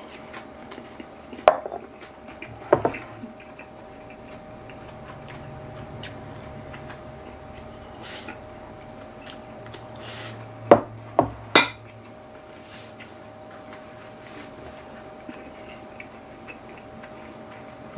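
Wooden chopsticks clinking against ceramic bowls while eating, a few scattered sharp clicks, the loudest a quick run of three near the middle, over a faint steady hum.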